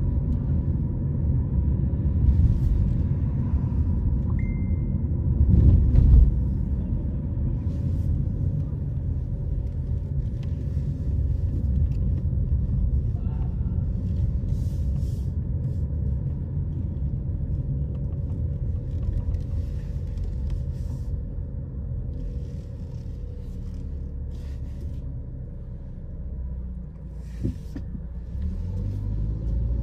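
Car driving: steady low road and engine rumble, easing off a few seconds before the end and building up again. A brief high beep about four seconds in.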